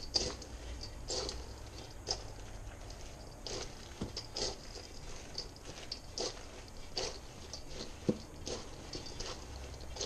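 Shredded cabbage and carrot with mayonnaise dressing being tossed in a large stainless steel mixing bowl: irregular stirring strokes of the moist shreds, with a sharp tap about eight seconds in.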